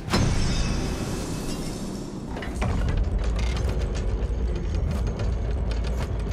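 Mechanical ratcheting clatter over a heavy low rumble, with a sharp hit at the start and another about two and a half seconds in.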